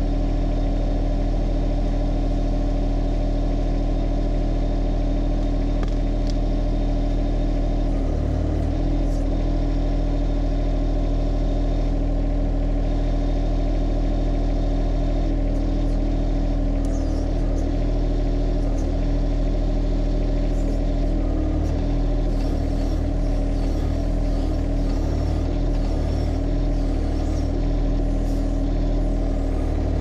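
John Deere 1025R compact tractor's three-cylinder diesel engine running steadily. In the second half it takes on uneven surges as the backhoe hydraulics work the bucket curl to pull a chained fence post out of the ground.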